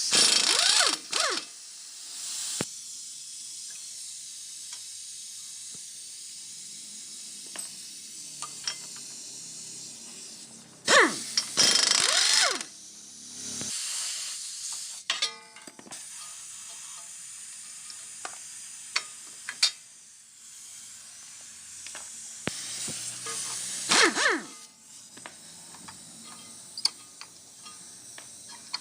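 Three loud bursts of hissing, one near the start, one about eleven seconds in and one about twenty-three seconds in, over soft background music, with a few faint clicks in between.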